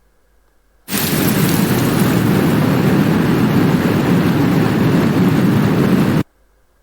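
Rain sound effect played back from a recording: a steady rush of rain that starts abruptly about a second in and cuts off suddenly near the end.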